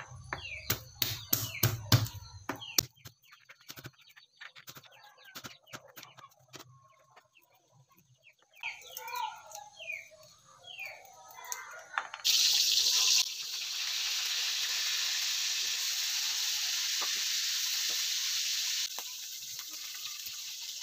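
Clattering clicks and knocks, then chickens clucking briefly, then a tap running steadily for about seven seconds before easing to a softer flow near the end.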